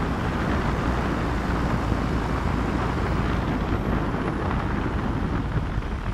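Steady rush of wind buffeting the microphone together with the engine and tyre noise of a moving pickup truck, heard from its open bed.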